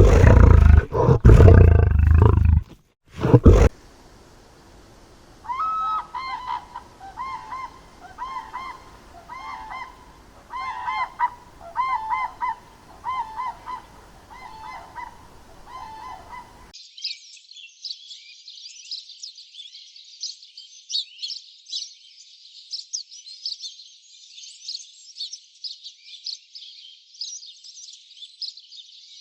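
A run of animal calls: a few loud roars in the first seconds, then a string of honking calls about once a second, then a dense high-pitched chirping chorus for the last dozen seconds.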